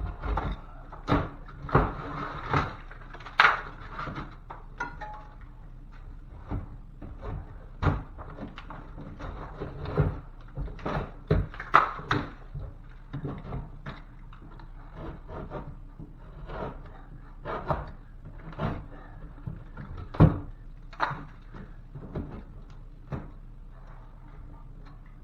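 Razor blade knife cutting through ceiling drywall by hand: irregular scraping strokes with knocks in between, a few a second at times. The blade is used in place of a saw to avoid making dust.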